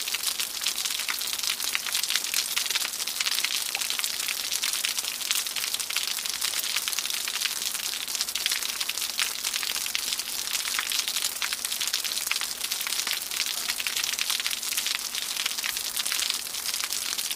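Waterfall: falling water splashing steadily, a bright hissing rush dense with fine crackling splashes.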